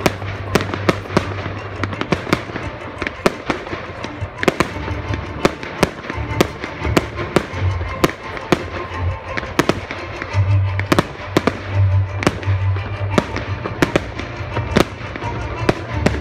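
Aerial fireworks shells bursting in quick succession, a few sharp bangs and crackles each second.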